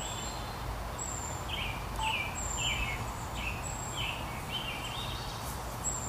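Birds chirping: short chirps repeated about twice a second, with a thin high whistle about once a second, over steady low background noise.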